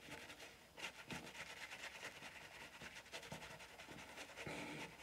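Shaving brush working lather on a wet face: quiet, rapid swishing strokes of the bristles through the foam.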